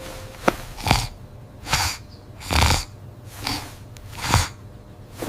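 Cartoon kitten snoring loudly: a run of short, noisy snorting breaths about once a second.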